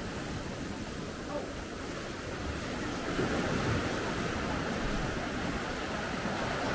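Sea waves washing on a beach, with wind rumbling on the microphone; the wash grows louder about three seconds in.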